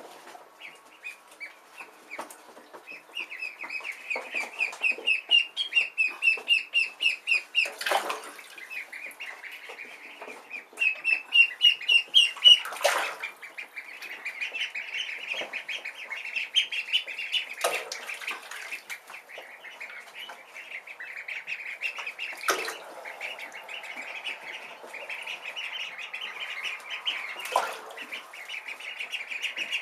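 Khaki Campbell ducklings peeping: quick runs of high, short peeps, loudest in two spells in the first half, then overlapping peeping from several birds. A handful of brief sharp knocks break in at intervals of a few seconds.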